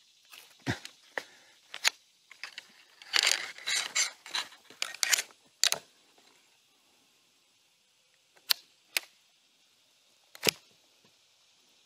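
Aluminium pole sections of an ultralight folding camping chair frame, held together by elastic cord, clicking and clacking against each other and into their plastic hub joints as the frame is unfolded. A few clicks at first, a rattling flurry in the middle, then three single sharp clicks near the end.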